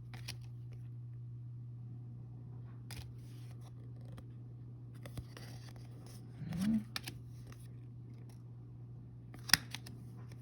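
Trading cards handled and flipped through by hand: light sliding and rustling, with a sharp click about nine and a half seconds in, over a steady low hum.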